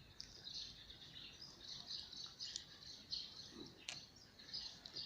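Faint background chirping of birds, a steady chatter of high-pitched chirps, with a couple of light sharp clicks, one of them just before the four-second mark.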